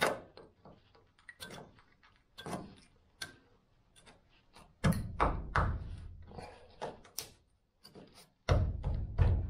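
Hand-held cold chisel picking and scraping at seam sealer in a rusted sheet-metal seam of a VW T2 bus: scattered metal clicks and short scrapes, with heavier thumps about five seconds in and near the end.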